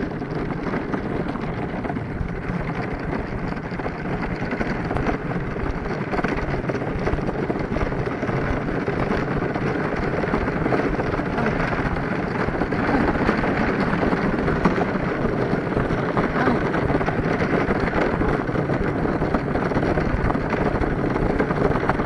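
Steady rolling rumble of a small dog-drawn cart's wheels on an asphalt road, mixed with wind rustle on the microphone, a little louder in the second half.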